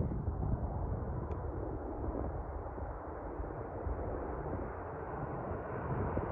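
Distant drone of an RAF C-130 Hercules four-engine turboprop approaching, growing louder toward the end. Low wind rumble on the microphone underneath.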